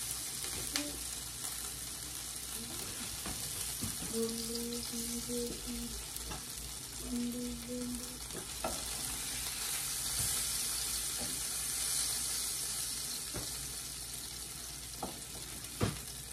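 Sausage links sizzling on a hot electric griddle, a steady frying hiss, with a few light clicks as tongs turn and lift them to brown on all sides.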